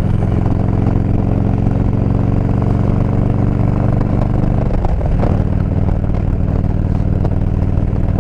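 Harley-Davidson touring motorcycle's V-twin engine running steadily at cruising speed, heard from the rider's seat over wind and road noise. Its pitch dips briefly about five seconds in, then it settles again.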